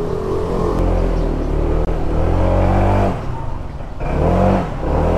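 Honda ADV160 scooter's single-cylinder engine running and revving in throttle blips: the pitch climbs about two and a half seconds in, drops off near three seconds, and surges and falls again about four seconds in.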